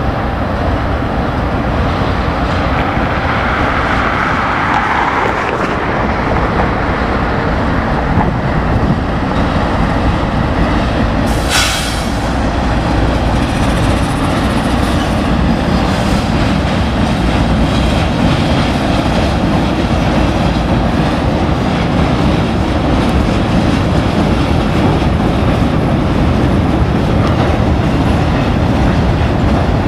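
Norfolk Southern freight train passing close: its diesel locomotives running and freight cars rolling by with wheels clacking over the rail joints, as a steady loud rumble. A brief high-pitched burst cuts through about eleven and a half seconds in.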